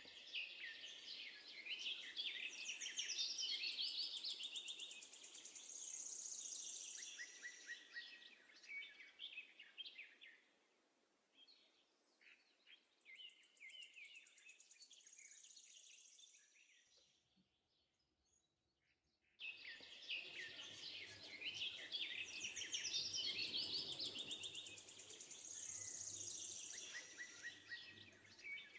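Faint recording of songbirds chirping and trilling. It fades low about two-thirds of the way through, then cuts back in abruptly as the same stretch of song starts over, like a looped background track.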